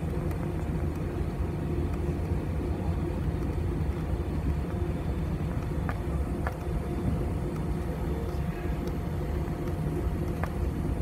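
Airbus A320 cabin noise while taxiing: the engines at idle give a steady low rumble and hum with a couple of steady tones. A few light clicks are heard around the middle and near the end.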